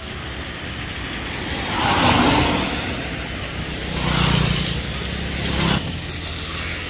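Motor vehicles passing on a rain-wet road: tyre hiss and engine noise swell and fade three times, the loudest pass about two seconds in.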